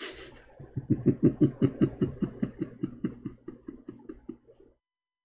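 A man laughing: a run of quick, rhythmic chuckles, about six or seven a second, that slowly fade out, starting after a short breath.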